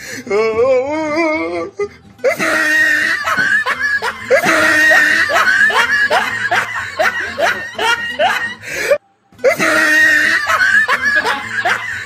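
Comedic background music mixed with laughter. The music breaks off for a moment about nine seconds in, then starts again.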